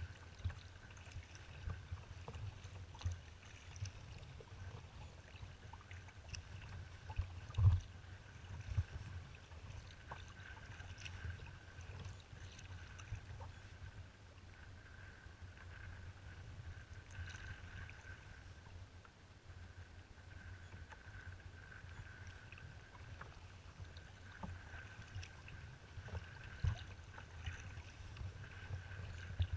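Water lapping and slapping against a kayak's hull as it moves through choppy water, under a low, uneven rumble of wind on the microphone. There is one louder knock about eight seconds in.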